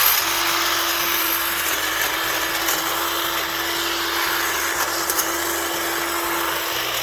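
DeWalt 20V Max cordless hedge trimmer (DCHT820, 22-inch blade) running steadily with a constant hum, its reciprocating blades cutting through brush, which goes through like butter.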